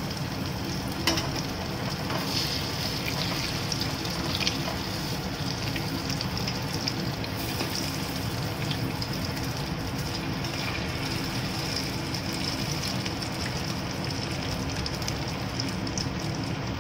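Urad dal bhallas sizzling steadily as they deep-fry in hot oil in an aluminium kadhai. A couple of light clicks come from the slotted spoon turning them, about a second in and again a few seconds later.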